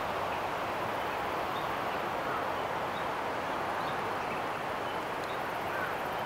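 Steady outdoor background hiss, with a few faint bird chirps.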